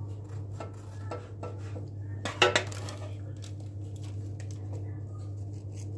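Kitchenware being handled: light clicks and clinks of dishes or a baking tray, with one louder clatter about two and a half seconds in, over a steady low hum.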